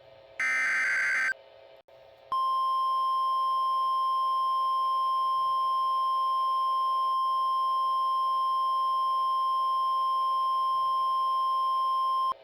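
A burst of Emergency Alert System SAME header data, a harsh digital screech about a second long. After a short gap comes the 1050 Hz NOAA Weather Radio warning alert tone: one steady high tone held for about ten seconds that cuts off sharply, the signal that a warning message follows.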